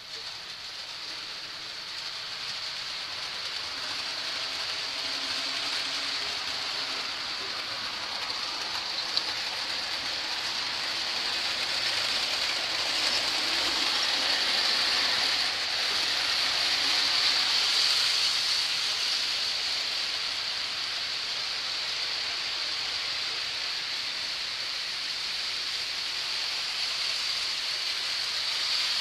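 Model train running on the layout track: a steady whirring rush with a high motor whine that grows louder, peaks a little past halfway, then eases off.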